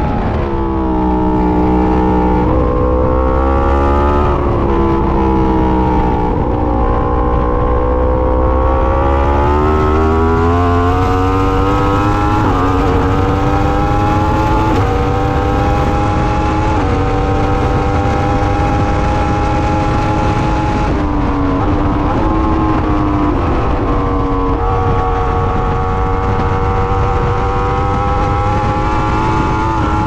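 Yamaha R1 inline-four sportbike engine at high revs, heard onboard. Its pitch climbs through each gear and drops sharply at each shift, several times, over a steady rush of wind.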